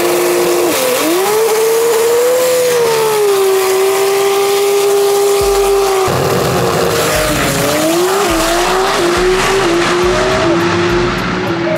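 Drag race car's engine held at high revs on the starting line, with tyre squeal. About six seconds in it launches and pulls down the strip, the pitch climbing in short steps through the gears.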